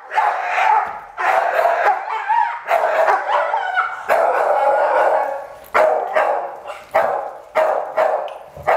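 A dog barking aggressively at another dog in a run of about nine loud, harsh, drawn-out barks at uneven intervals.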